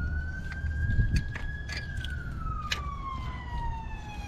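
Emergency-vehicle siren wailing in the background: one slow cycle that holds high, then falls steadily in pitch and sweeps back up sharply near the end. It sits over a low rumble, with a few sharp metallic clicks from channel-lock pliers working a hose clamp.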